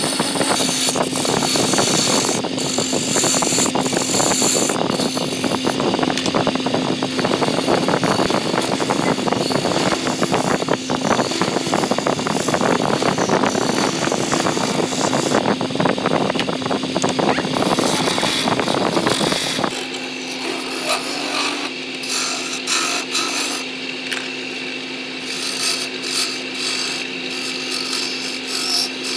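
Wood lathe running, with a turning tool cutting into the spinning wood in a loud, continuous scrape over a steady motor hum. About two-thirds of the way through the cutting drops away to lighter, intermittent scraping while the motor keeps humming.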